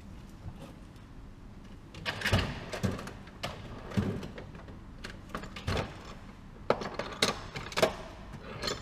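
Irregular knocks and clicks of metal CV-joint parts and hand tools being handled, starting about two seconds in, several of them sharp and loud.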